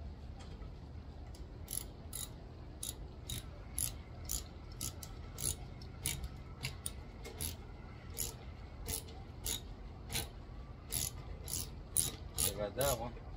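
Ratchet wrench clicking in short strokes, roughly two clicks a second, as a bolt is turned. A brief wavering squeak sounds near the end.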